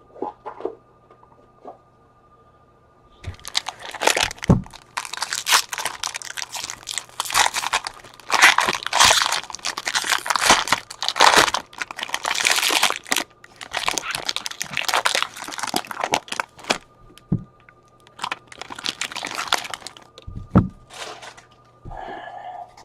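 A baseball card pack's wrapper being torn open and crumpled: a long stretch of crinkling and tearing with a few sharp crackles. It starts a few seconds in and dies down near the end.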